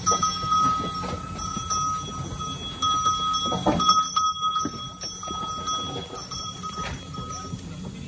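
Goats' hooves clattering on the wooden floor of a milking parlour as the goats file out through a doorway, with irregular knocks and a louder burst about three and a half seconds in, over a steady high whine.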